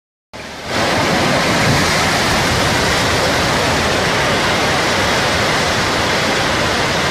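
Floodwater rushing in a steady, even wash of noise, starting about half a second in.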